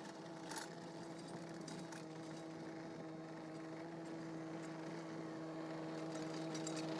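Mini excavator engine running at a steady speed, a constant hum that grows slowly louder.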